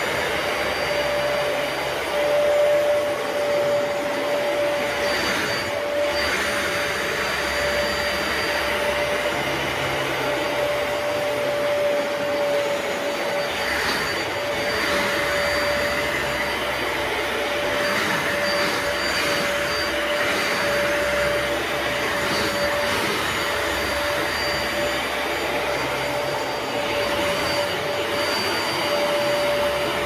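Bissell ProHeat 2X Revolution upright carpet cleaner running as it is pushed back and forth over shag carpet. The motor holds a steady whine over the rushing noise of suction through the wet pile, swelling slightly with each stroke.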